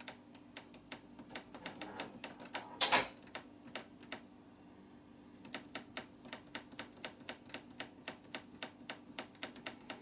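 Rapid clicking of a Beko WMB81445L washing machine's Time Delay push button, pressed over and over at about three to four clicks a second as the delay is stepped up. One louder knock comes about three seconds in, and the clicking thins out briefly around the middle.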